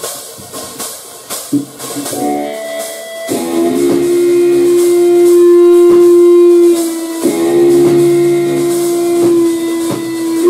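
Loud rock band music with guitar and drums; a few seconds in a long, loud held note with a brief break sustains over the rhythm.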